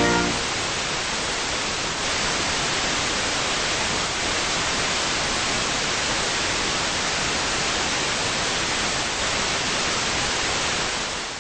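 Steady radio static, an even hiss with no tone in it, fading out at the very end.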